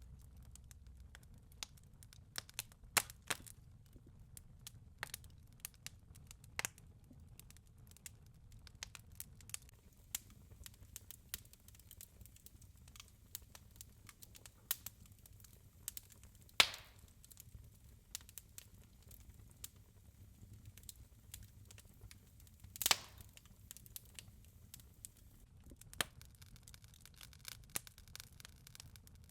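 Wood fire crackling in a fireplace: irregular small snaps and pops over a low, soft rumble, with two sharper pops, one a little past halfway and one about three-quarters of the way through.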